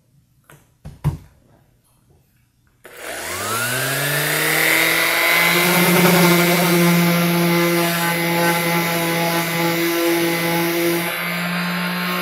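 A few knocks as the sander is handled, then a Porter-Cable random orbital sander switches on about three seconds in, whining up to speed within a second and running steadily with the hiss of its pad sanding a pine board. A new clutch belt has just been fitted to keep the pad's speed down.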